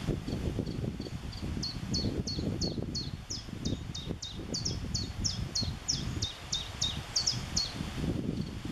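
A small songbird singing a long run of identical short, high notes, about three a second, softer at first and then louder for most of the run. A low rumbling noise runs beneath it.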